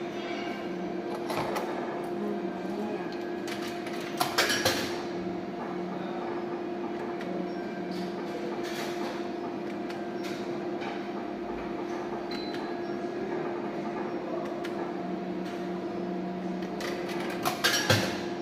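Coin-operated bar slot machine humming steadily, with its game sounds over a noisy background. Twice there is a short, loud metallic clatter, about four seconds in and near the end, the second as the credit rises to 2 €, as coins are fed into the machine.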